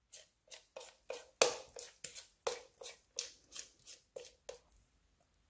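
A hand tapping the bottom of an upturned plastic cup, about fourteen quick knocks at about three a second, to knock a thick yogurt, egg and cheese mixture out of it. The knocks stop shortly before the end.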